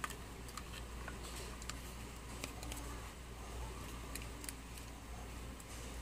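Scattered light clicks and taps of hard plastic parts being handled as a red plastic horn tube is fitted into the socket of a soccer-ball air horn noise maker, over a low steady hum.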